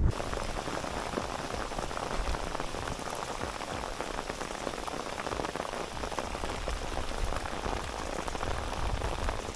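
Drizzle falling steadily, an even hiss thick with the fine ticks of many small drops.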